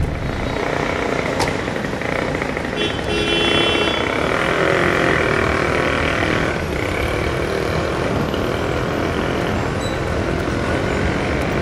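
City street traffic: cars and taxis running and passing, as a steady, dense rumble. A brief high-pitched tone sounds about three seconds in.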